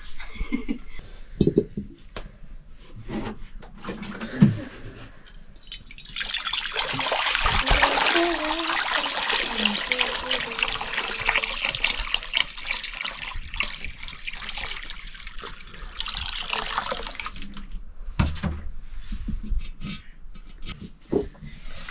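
Water running or being poured, a steady rush that starts about six seconds in and stops after about eleven seconds. Scattered knocks and clinks come before and after it.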